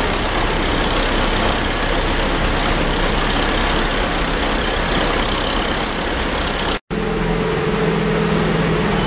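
Heavy diesel engines running steadily as a backhoe loader and then a flatbed truck wade through deep floodwater, over a steady rush of water. The sound drops out for an instant near the end, after which a steady engine hum stands out.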